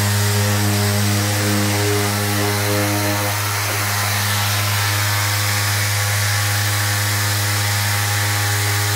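Mirka DEROS 5 mm electric random orbital sander running steadily, its interface pad sanding a painted metal gutter. A set of higher hum tones over its steady low drone fades away about three and a half seconds in.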